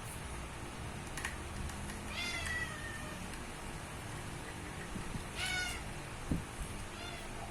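A cat meowing: two clear meows about three seconds apart and a fainter one near the end.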